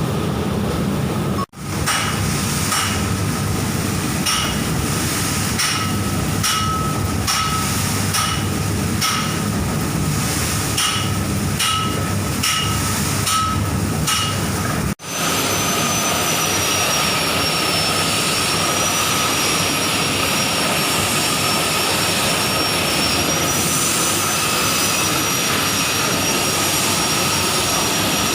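Motorised crop dryer with an automatic stirrer running: steady machine noise with regular metallic clinks, about one a second. After a break about halfway in, the running continues with a thin high whine.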